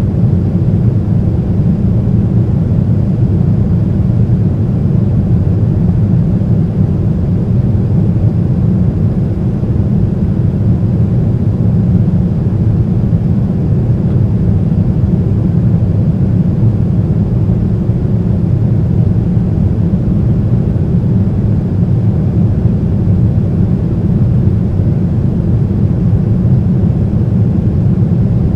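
Steady, deep rumble of a Boeing 767-300's GE CF6 turbofan engines and the airflow, heard inside the passenger cabin.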